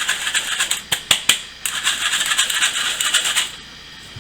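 Hand-cranked flour sifter rattling and scraping rapidly as flour is sifted, with a few sharp clicks about a second in; it stops about three and a half seconds in.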